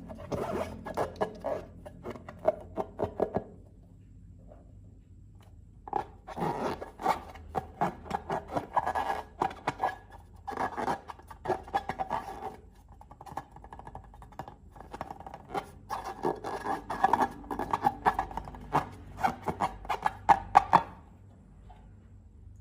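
Close-up slime-making handling sounds with balloons: long runs of rapid crackly clicks and scrapes. They pause briefly about four seconds in and stop a little before the end.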